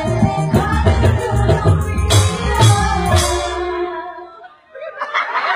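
Live dangdut band playing with a woman singing over a heavy bass and drum beat. A few sharp drum and cymbal hits come about two to three seconds in, and the song stops about four seconds in. Talking and chatter pick up near the end.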